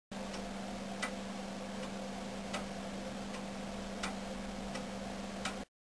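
Iron clock with a verge-and-foliot escapement ticking, a tick about every three quarters of a second, with every other tick louder, over a steady low hum. The sound cuts off suddenly near the end.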